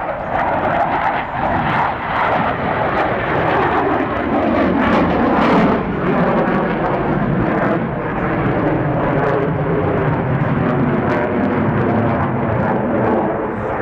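Jet aircraft flying past, its engine noise falling in pitch as it goes by, then running on as a steady drone.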